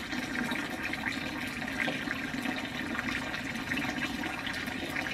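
A thin stream of water falling and splashing steadily, a continuous trickling rush.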